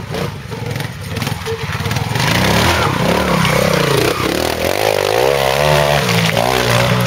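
A trials motorcycle's engine revving up and down under load as the bike climbs a rocky slope. It grows louder about two seconds in as the bike comes close.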